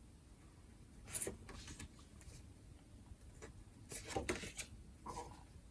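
Cardboard postcards being handled and slid against one another, with short rustles of card about a second in and again around four to five seconds in.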